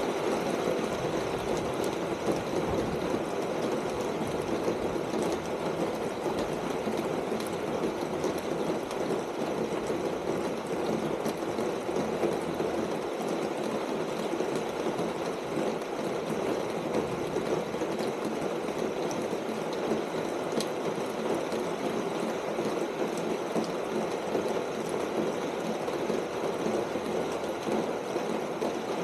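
Steady rain falling on a corrugated metal roof: an even hiss of drops with occasional sharper ticks.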